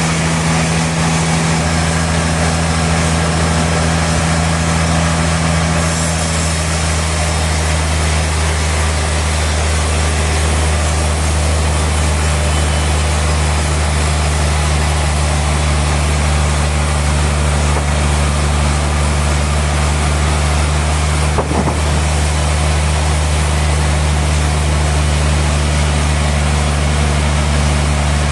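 Sawmill machinery running steadily: a constant low engine hum under an even, wide hiss, with one short click about 21 seconds in.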